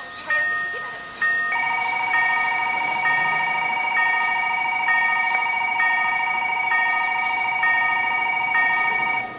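Electronic warning bell of a railway level crossing ringing at an even pace, about one stroke a second. About a second and a half in, a second continuous pulsing warning tone joins it and runs until just before the end.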